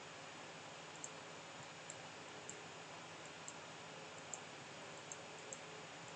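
Faint, short computer-mouse clicks at irregular spacing, roughly one a second, over a steady low hiss.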